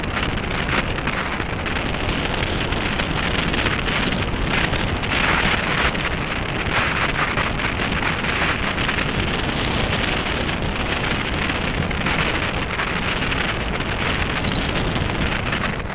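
Mountain bike tyres rolling over a loose dirt-and-gravel track, a steady crackling hiss, with wind noise on the camera microphone.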